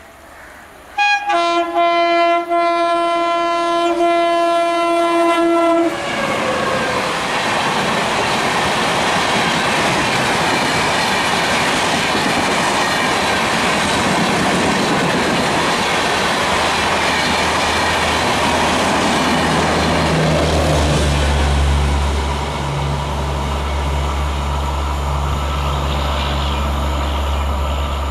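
WAP7 electric locomotive sounding its horn, a couple of short toots and then a long blast of about four seconds, followed by the rushing clatter of its passenger coaches passing at high speed. From about two-thirds of the way in, a steady low hum joins as the train's rear power car goes by.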